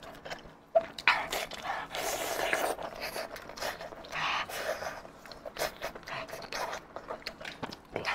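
Close-miked eating sounds: wet chewing, sucking and picking at meat pulled off braised sheep's-head bones, with many short sharp mouth clicks.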